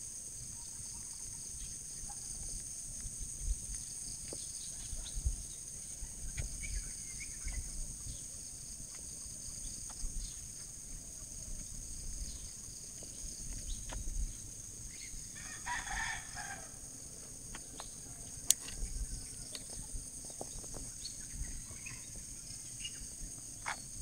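A rooster crowing once, a single call of about a second and a half a little past the middle, over a steady high hiss and low rumble.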